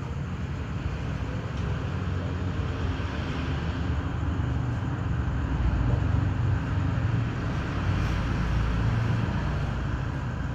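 Low steady rumble of a passing motor vehicle, slowly growing louder through the middle and fading again near the end.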